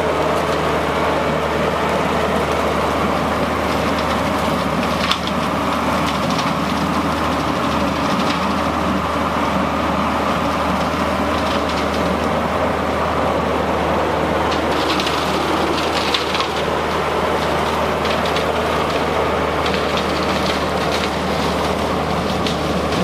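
LS XR4040 compact tractor's diesel engine running steadily under load, driving a PTO rotary cutter (brush hog) through brush and vines, with scattered crackling as sticks and brush are chopped.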